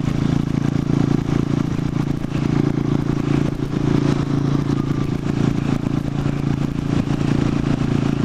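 Buell Blast motorcycle's single-cylinder engine running steadily at cruising speed, with wind buffeting the microphone in a crosswind.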